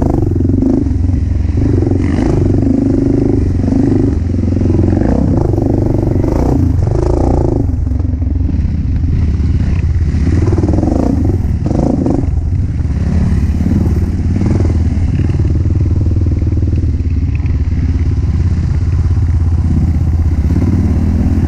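Single-cylinder four-stroke dirt bike engine running on a trail ride, its revs rising and falling with the throttle.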